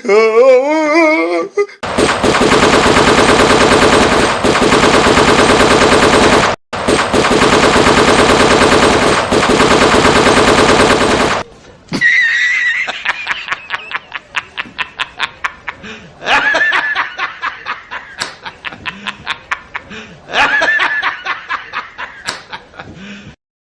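Fake machine-gun fire: a long, loud burst of very rapid shots with one brief break, then a slower string of single shots, about three a second. A voice is heard briefly at the start.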